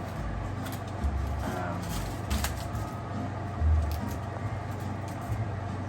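Handling of a packaged honey baked ham as it is opened on a plate: a few soft knocks and short clicks, with faint voices.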